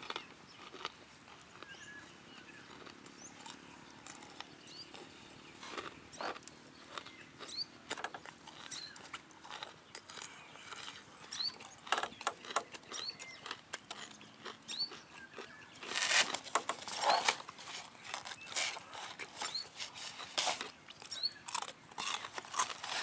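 Close-up chewing and crunching of crispy fried chicken coating, irregular and heaviest about two-thirds of the way through. Short high chirps from birds come through now and then in the background.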